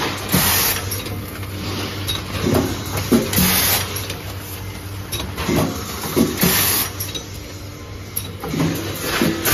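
Automatic zip-lock doy-pack pouch packing machine running through its cycle: a steady low hum, a short hiss about every three seconds, and pairs of mechanical knocks repeating on the same rhythm.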